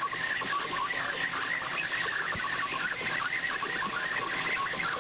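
Cosen C-520NC bandsaw blade cutting through a solid block of 15-5 PH stainless steel: a steady cutting hiss laced with quick, rapidly repeating high squeaks.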